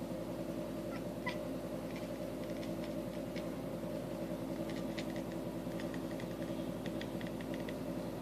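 Domestic cat purring steadily, a continuous even rumble, with faint short clicks scattered over it.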